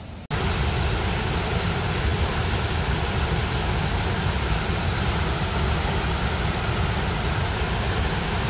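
Steady rushing of water pouring over a dam spillway, starting suddenly a moment in.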